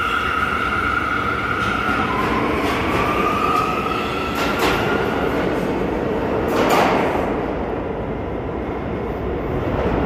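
New York City subway train running through the station, with a steady rumble of wheels on track and a motor whine that dips about two seconds in and then climbs in pitch. Two sharp clacks come from the wheels, the second about halfway through and the loudest.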